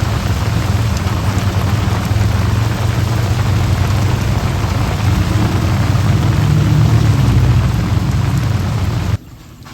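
Heavy tropical-storm rain pouring down, a loud dense hiss with a strong low rumble, stopping abruptly near the end.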